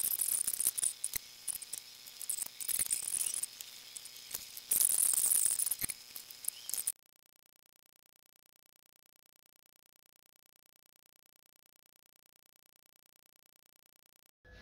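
Light metallic clicks and clinks of pushrods being dropped into a Rover V8's lifter valley, with a faint steady high whine under them. The sound cuts off to dead silence about seven seconds in.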